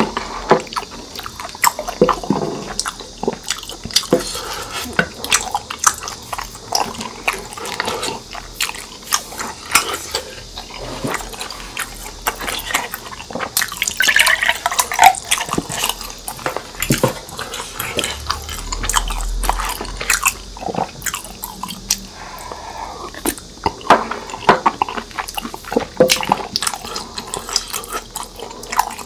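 Close-miked eating sounds: wet chewing, lip smacks and slurps of tteokbokki in its sauce, with clicks of a wooden spoon against the plate. About 14 seconds in, a drink is poured from a paper carton into a glass mug.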